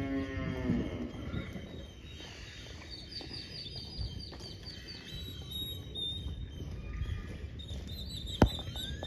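The end of a cow's moo, falling in pitch, in the first second, then birds chirping, with a quick run of repeated high chirps a few seconds in. A single sharp click near the end is the loudest sound.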